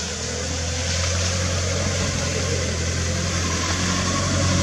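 A motor running steadily: a low, even hum over a constant hiss, growing a little louder about a second in.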